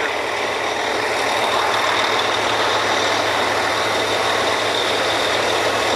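Drilling rig machinery running steadily: a loud, even mechanical din with a constant low hum, growing slightly louder.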